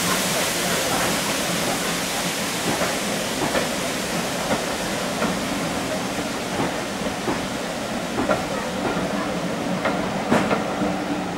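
Passenger coaches of a steam-hauled train rolling past, their wheels clicking over the rail joints, often in pairs. A hiss of steam fades as the train moves on.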